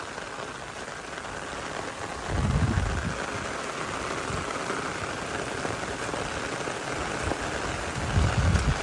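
Heavy rain falling steadily as an even hiss. Two short low rumbles sit under it, one about two seconds in and one near the end.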